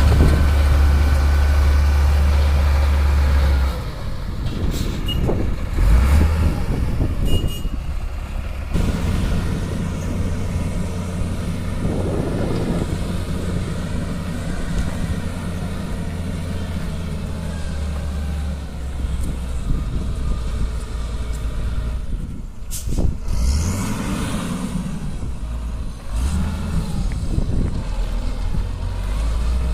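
Heavy diesel engine of road-building machinery running under varying load, its low drone dropping and rising several times, with a short sharp click about twenty-three seconds in.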